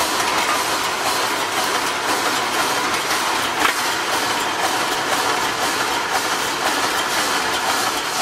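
Automatic wire mesh panel welding machine running, a steady clattering noise with a rapid run of faint clicks as its welding row works across the mesh, and one sharper click about three and a half seconds in.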